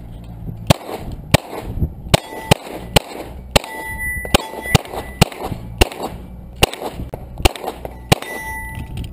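A semi-automatic pistol firing about a dozen shots at steel target plates over some eight seconds, roughly one to two shots a second. Several hits are followed by the steel plates ringing with a clear held tone.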